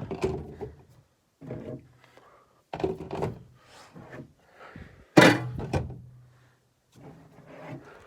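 Plastic drink bottles being set down and shifted inside a mini-fridge: a series of irregular thunks and clunks, the loudest about five seconds in.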